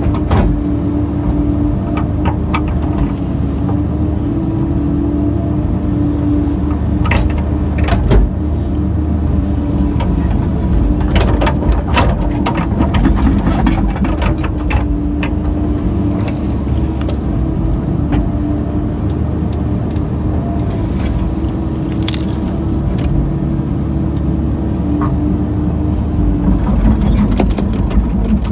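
Excavator's diesel engine and hydraulics running steadily under load, a constant drone with a steady hum, heard from inside the operator's cab. Scattered knocks and clanks come through as the bucket works stumps and dirt.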